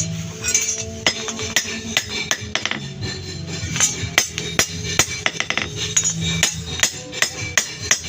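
Hammer striking metal in quick, irregular blows, a few a second, each with a short metallic ring, over background music.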